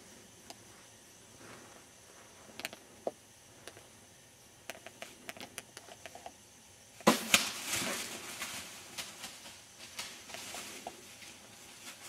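Light crunching of a deer's steps in dry leaves, then about seven seconds in a sudden sharp crack of a bow shot striking the doe, followed at once by a burst of crashing in dry leaves as she bolts, with rustling after.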